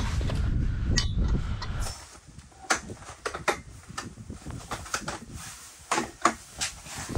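A low rumble for about the first two seconds, then the metal frame of a bunk cot clicking, knocking and clinking as it is fitted together and set in place, a string of sharp knocks with a few louder clanks.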